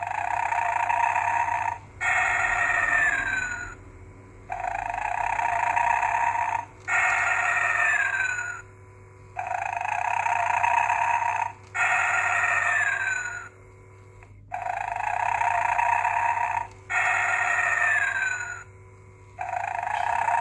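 Gemmy Snoring Santa Claus animatronic (1995) playing its snoring sound. A raspy snore in is followed by a whistling breath out that falls in pitch. The cycle repeats about every five seconds, four times over.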